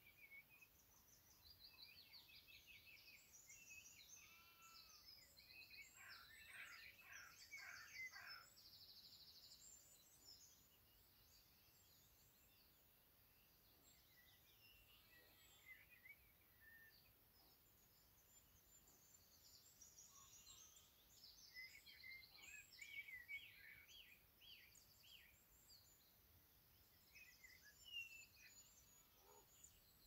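Faint songbird chirps and calls from several birds, with rapid high trills, busiest at the start, thinning out in the middle and picking up again later.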